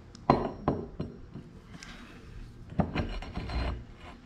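Hand work on tractor front-axle parts: three sharp knocks in the first second, then scraping and rubbing about three seconds in.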